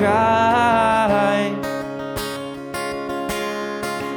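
Acoustic guitar strumming under a solo voice: the last sung word is held for about a second and a half, then the guitar carries on alone with several strums.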